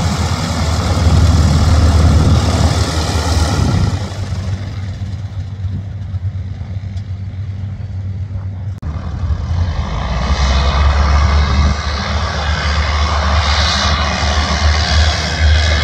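Single-engine propeller light aircraft's piston engine running at taxi power with a steady low hum. It drops in level about four seconds in, then rises and stays loud again from about ten seconds.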